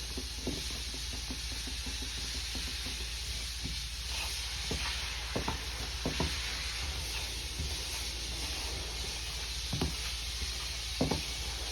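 Primer being stirred in a mixing cup: a stick scraping and tapping against the cup in scattered small clicks and knocks, over a steady hiss.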